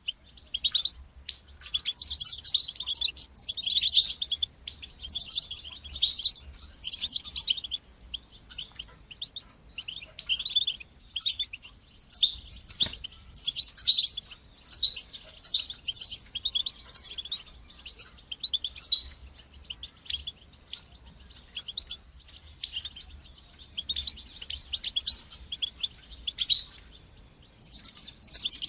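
European goldfinch singing: rapid runs of short, high, twittering chirps and trills, broken by brief pauses.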